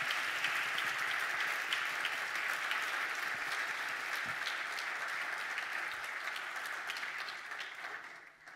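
Audience applauding, dense clapping that fades away near the end.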